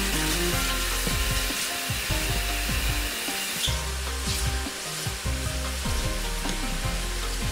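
Background music with a steady melody of short notes, over the wet squishing and rubbing of hands kneading potato-starch-coated sliced pork in a stainless steel bowl.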